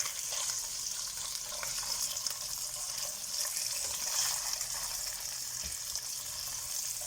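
Tofu pieces frying in hot oil in a pan: a steady high sizzle, with a few light clicks as they are turned over.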